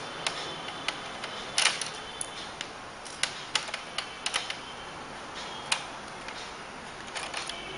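Irregular sharp clicks and ticks of a small screwdriver turning out screws and knocking against a laptop's plastic casing, loudest about a second and a half in.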